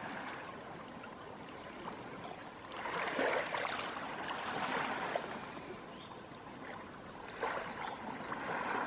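Small waves of a calm sea lapping and washing onto a sandy shore, swelling louder about three times.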